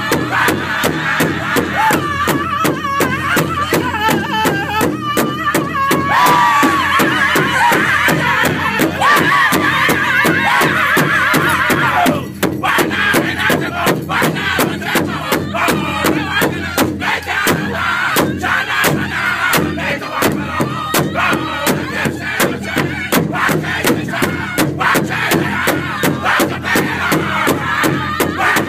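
Powwow drum group singing together in high voices over a steady, even beat struck by several drummers on one large shared powwow drum. The beat and singing break off briefly about twelve seconds in, then carry on.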